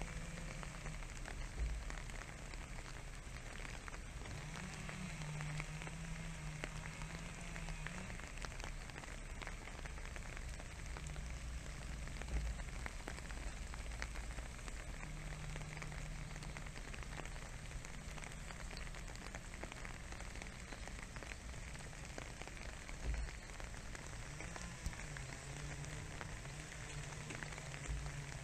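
Steady light rain pattering, with a faint low hum that comes and goes several times and a few dull thumps.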